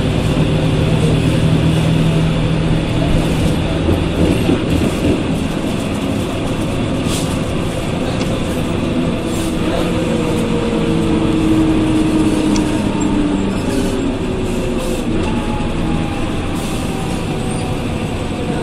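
Ikarus 280 articulated bus's Rába D10 six-cylinder diesel engine running as the bus is driven, with whine from its ZF 4HP 500 automatic gearbox gliding slowly in pitch over a steady rumble.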